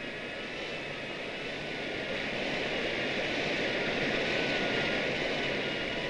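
Rushing water of a waterfall: a steady hiss that swells to its loudest about two-thirds of the way through and eases near the end, with a faint chord of sustained high tones over it.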